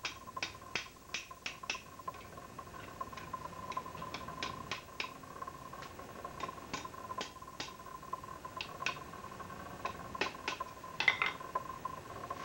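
Light hammer taps on hot iron, closing the letter opener's forged loop around a glass marble seated over the anvil's pritchel hole: short, sharp, irregular clicks, with a quick cluster near the end.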